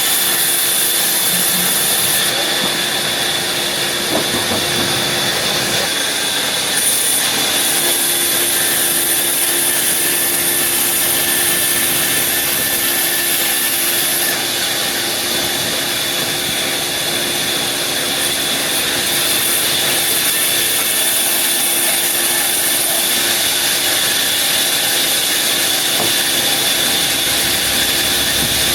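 Sawmill wood-cutting machinery running steadily, a loud, even machine noise with a high steady whine.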